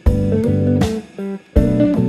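Background music: guitar chords played in short phrases, with a sharp attack roughly every second and a half.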